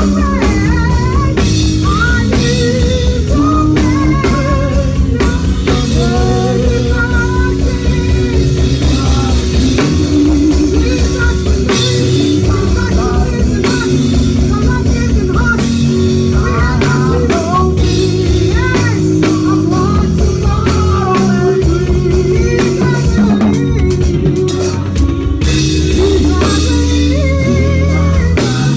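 Drum kit played live in a full worship band, the drums close and prominent over sustained low notes, other band instruments and singing.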